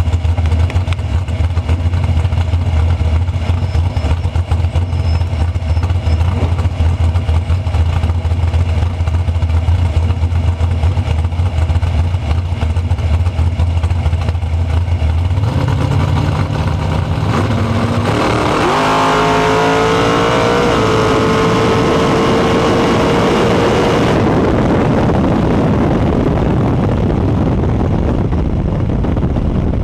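A dragster's V8 idling, then running at a higher steady speed for a few seconds before launching. The engine then runs flat out with its pitch rising fast for about five seconds down the strip. Near the end the throttle is lifted, and the note drops away under a rush of wind and tyre noise as the car coasts.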